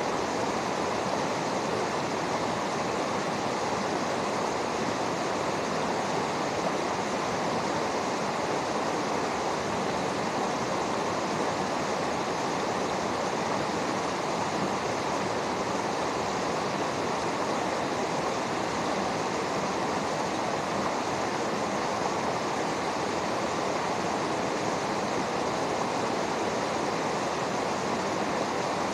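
Shallow river rushing over rocks: a steady, even rush of flowing water.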